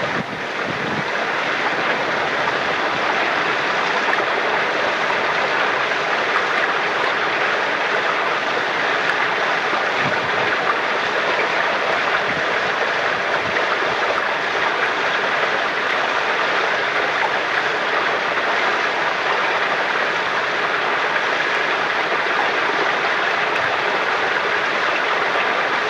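Water flowing steadily from a spring-fed holy well, a continuous even rush. It dips briefly right at the start, then holds level.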